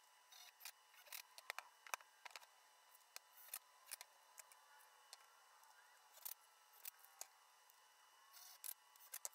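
Near silence, broken by faint, irregular clicks and light taps as screws and a cordless impact driver are handled against a pine 2x4 frame, over a faint steady hum. There is a small cluster of clicks about two seconds in and again near the end.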